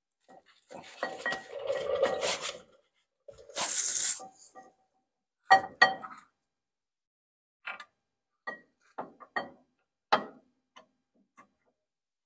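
Metal brake hardware clinking and clattering as a caliper abutment bracket is fitted to the front hub behind the brake rotor. First a rustling clatter, then a brief hiss about four seconds in, then a series of about seven sharp, ringing metal clinks spread over the next five seconds.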